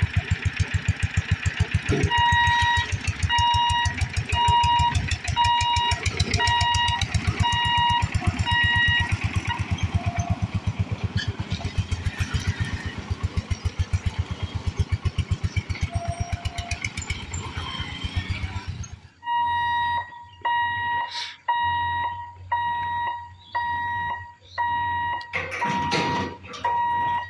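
Railway level-crossing warning signals as the barriers come down: a fast, steady electric bell clatter under an electronic beep repeating about every 0.7 s. The clatter stops about two-thirds of the way in, and the beeping goes on alone.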